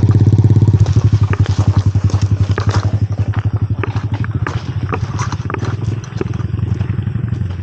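Small underbone motorcycle's engine running with an even low putter, loud at first and slowly fading as it pulls away. Footsteps crunch on gravel over it.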